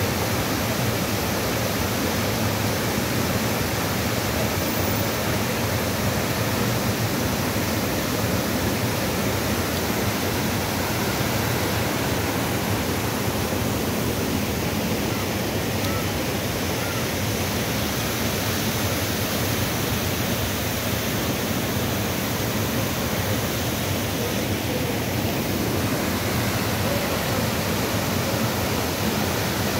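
Waterfall of heavy, muddy floodwater pouring over a stone weir and churning in the pool below: a loud, steady rush that does not let up.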